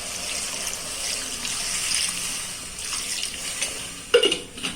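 Water being poured into a pressure cooker of sautéed chicken pieces, a steady splashing pour for about four seconds, followed by a couple of sharp metal clanks near the end.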